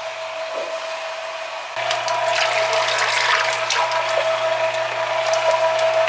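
Clicking and rattling of a small geared mechanism over a steady hum, growing abruptly louder about two seconds in.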